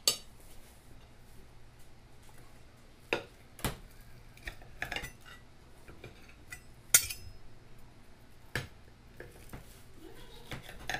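Steak knife and fork clinking and scraping against a ceramic dinner plate as a T-bone steak is cut, with sharp clinks at irregular intervals, the loudest about seven seconds in.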